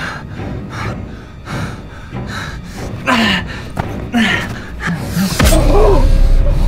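A frightened man breathing hard in short, rapid breaths, with voiced gasps a little after three and four seconds in. About five seconds in, a loud low rumble comes in and holds.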